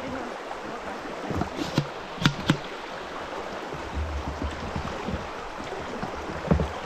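River rapids rushing steadily past two kayaks held side by side in the current. A few sharp knocks come about two seconds in.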